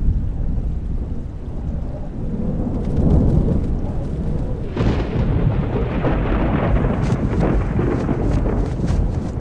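Storm sound: low rolling thunder rumbling, then about five seconds in a rush of wind and rain sweeps in, with scattered sharp ticks near the end.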